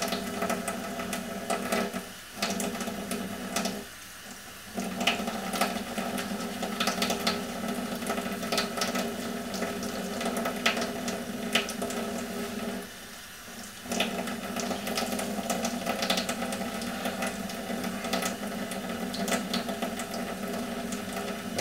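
Kitchen tap running steadily into a sink while wet costume pieces are rinsed by hand, with small splashes and handling clicks. The flow stops briefly three times.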